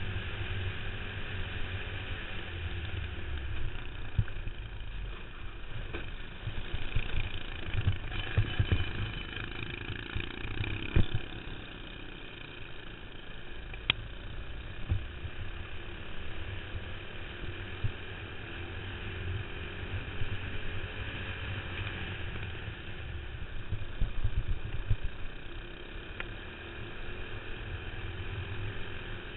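Onboard sound of a racing kart's single-cylinder four-stroke clone engine running at racing speed, its pitch rising and falling as the driver comes off and back on the throttle through the corners. Wind rumbles unevenly on the microphone, with a couple of sharp clicks partway through.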